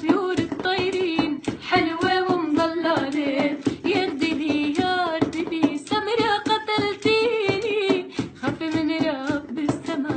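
A female voice singing an Arabic folk melody in long, ornamented phrases, over a steady rhythmic beat of sharp hand-struck percussion.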